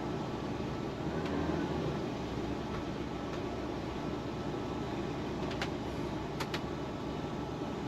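Class A motorhome engine running as the coach reverses slowly, a steady low rumble with a few short clicks in the second half.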